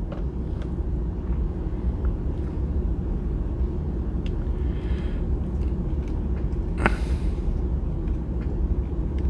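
Steady low rumble in the background, with faint clicks and rustles of a plastic action figure being handled as its face plate is swapped, and one sharper plastic click near the seven-second mark.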